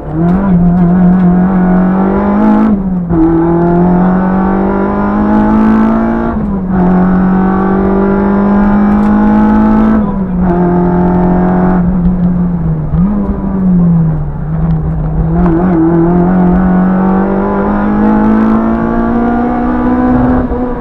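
Peugeot 106 GTi rally car's 1.6-litre 16-valve four-cylinder engine driven hard, heard from inside the cabin. The revs climb and break off sharply several times at gear changes.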